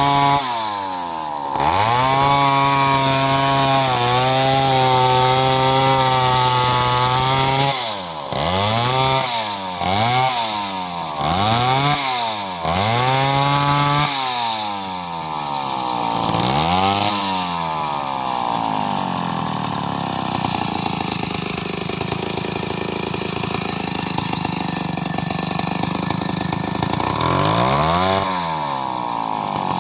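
Chainsaw engine held at high revs, then revved up and down several times in quick succession, then settling to a lower, rougher run with one more rev near the end.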